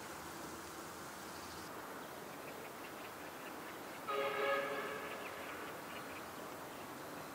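A horn sounds once, a single held note about a second long, a little over halfway in, over steady outdoor background noise.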